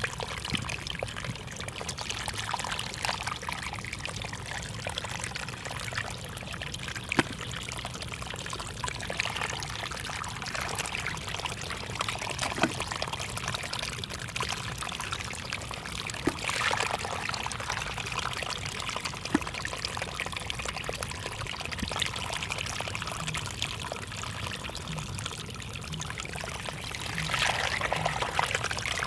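Water running and trickling steadily in a flooded rice field, with many small sharp splashes scattered through it and a louder stretch near the end.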